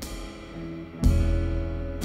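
Live trio of double bass, drum kit and electric guitar playing, with low bass notes held under two loud drum-and-cymbal hits, one at the start and one about a second in.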